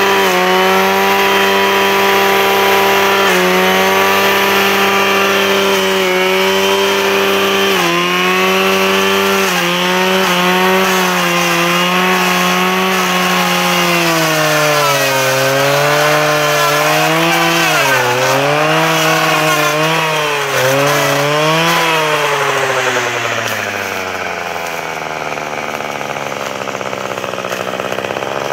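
Two-stroke engine of a Husqvarna 535RJ brushcutter running at high revs, its pitch dipping and recovering several times as the blade bites into brush, then slowing toward idle near the end.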